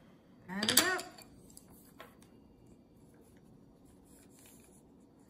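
A brief voice sound about half a second in, then faint scratching and tapping of a colored pencil on paper.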